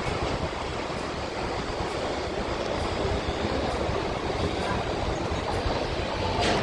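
MTR Kwun Tong line Q-Train running through the station, a steady rumble of wheels and motors with a few sharp wheel clicks near the end.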